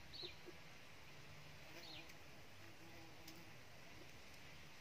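A faint bird call, short and high and falling in pitch, heard twice about two seconds apart over a quiet background.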